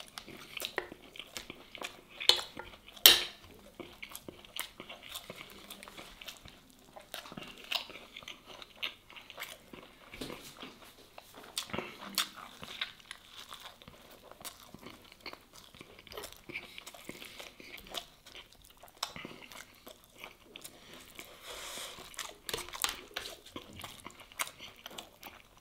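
Close-up sound of a person biting into and chewing a toasted bread sandwich with melted cheese: crisp crust crunching and wet chewing, with two louder crunching bites about two and three seconds in.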